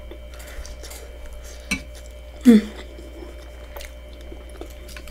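A metal spoon clinking and scraping in a glass bowl of seafood-boil sauce, with scattered small clicks. About two and a half seconds in there is a short vocal sound with a falling pitch.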